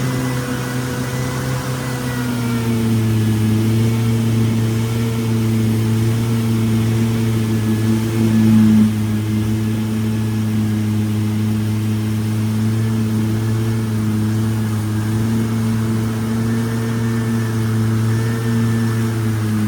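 Boat engine running steadily, its pitch dropping a little about two to three seconds in and then holding.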